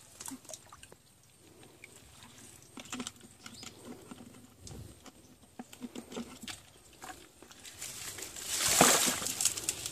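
Hands sloshing and dabbling in a shallow stream, rummaging through wet leaves and stones in search of crabs, with small scattered splashes and a louder splash near the end.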